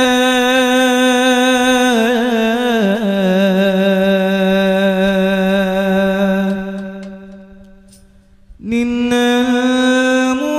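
A singer drawing out long held, ornamented notes with no drum. The pitch wavers and steps down a few seconds in. The voice fades away near the middle, then comes straight back on a new note after a short gap.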